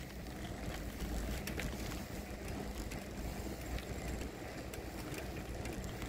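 Bicycle rolling along a paved road: a steady low rumble of tyres and wind on the microphone, with a few faint clicks.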